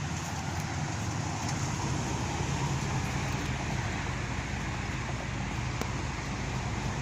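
An old Chevy car's engine running steadily, with a low hum under an even rush of road and wind noise.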